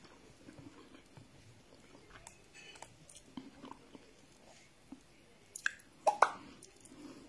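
A person chewing a mouthful of rice and fish with her mouth closed: soft wet mouth clicks and smacks, with a few louder sharp clicks about six seconds in.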